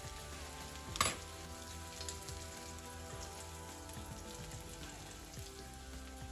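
Cabbage-and-oatmeal cutlets frying in oil in a skillet, sizzling steadily, with one sharp clink of a metal fork against the pan about a second in and lighter taps after it.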